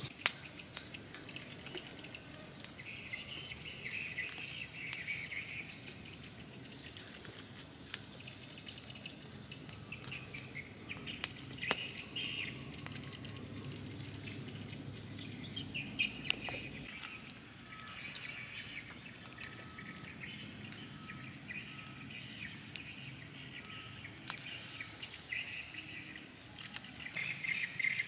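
Birds chirping and calling, with a run of short repeated notes in the second half, over the scattered sharp crackles of a small wood fire burning under a grill.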